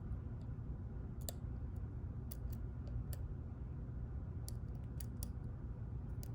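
Lock pick working the pins of a pin-tumbler challenge lock: light, irregular clicks as the pins are lifted and set, about eight in all, over a steady low hum.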